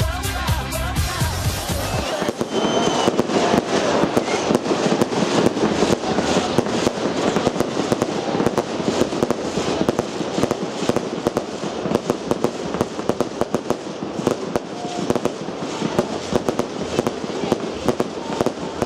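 Intro music with a heavy beat that cuts off about two seconds in, then a fireworks display: shells bursting with dense, rapid crackling and popping that goes on without a break.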